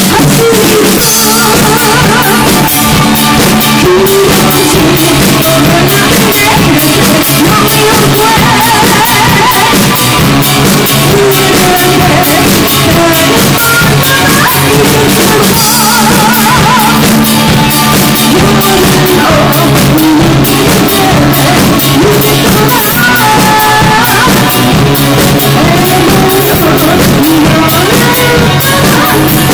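Live rock band playing loud: a woman sings lead over electric guitar and a drum kit.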